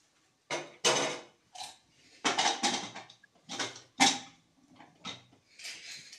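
Marker pen writing on a whiteboard: a series of short, scratchy strokes, about eight in all, as numbers and letters are written.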